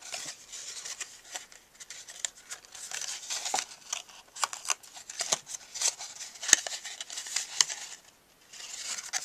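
Paper handling: cardstock rustling and clicking as the backing is peeled off double-sided sticky strip and the folded black cardstock is pressed into box corners. The small clicks and rustles come irregularly, with the sharpest tap about six and a half seconds in.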